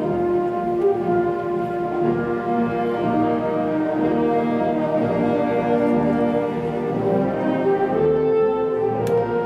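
Symphony orchestra playing sustained chords, with strings and brass, French horns among them, holding long notes that shift from chord to chord.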